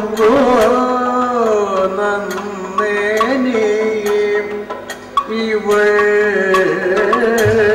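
A male Kathakali singer sings a padam in the Kerala classical style, holding long notes that slide and bend between pitches. A few sharp percussion strikes sound along with the voice.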